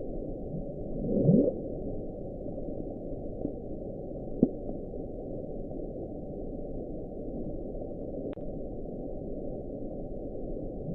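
The 'Bloop', NOAA's underwater hydrophone recording played back sped up: a steady dull ocean hiss with a short, loud rising sweep about a second in and a sharp click around four and a half seconds. NOAA later traced the Bloop to a large icequake.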